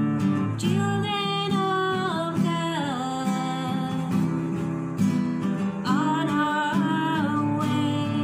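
A woman singing while strumming her own classical acoustic guitar. There are two sung phrases: the first falls step by step over a couple of seconds, and the second comes about six seconds in.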